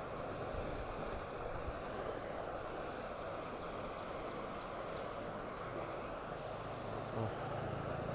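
Steady rush of a swollen, fast-flowing river running in flood, with a brief low knock about seven seconds in.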